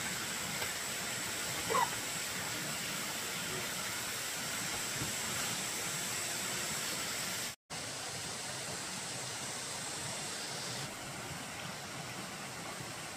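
Steady hiss of background noise, with one short high chirp about two seconds in and a brief dropout to silence about seven and a half seconds in.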